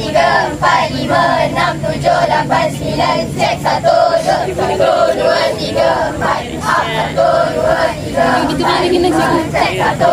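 Many students singing a chant together in unison, like a choir.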